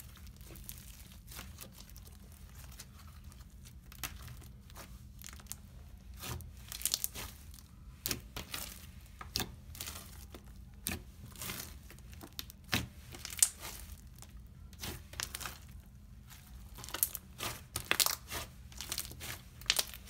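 A thick pink slime with small sprinkle-like bits being stretched, folded and poked by hand, giving irregular sticky crackling and clicking with now and then a sharper, louder pop.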